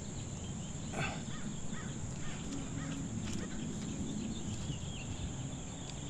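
Steady high-pitched insect buzz, crickets, over low outdoor background noise, with faint short chirps and a soft tap about a second in.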